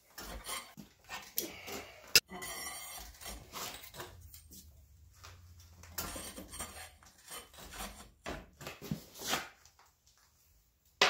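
Irregular scraping, rubbing and clinking of steel being handled at the forge, with one sharp knock about two seconds in.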